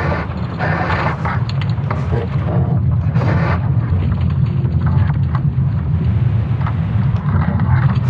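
Sonification of Earth's magnetic field during the Laschamp excursion, built from recordings of creaking wood and rumbling stones: a steady deep rumble with several bursts of creaking and crackling rising over it.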